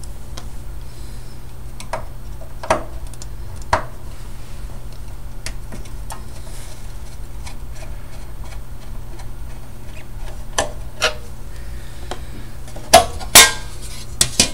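Scattered light metallic clicks and knocks from handling the metal chassis and cover of a Soviet avionics radio emitter box during teardown, with two louder clanks near the end, over a steady low hum.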